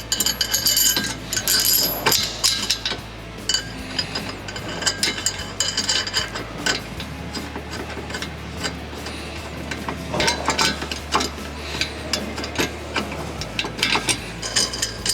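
Metal parts and hand tools clinking and ratcheting: a run of sharp clicks and ringing metallic taps, busiest in the first few seconds and again later on.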